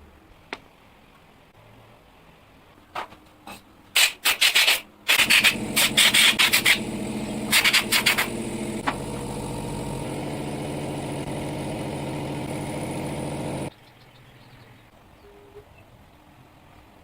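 A few sharp knocks and harsh scrapes, then a small motor starts running steadily with loud harsh scraping over it at first. It stops abruptly near the end.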